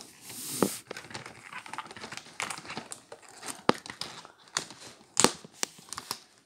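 Irregular rustling and crinkling with many sharp clicks, like something being handled close to the microphone.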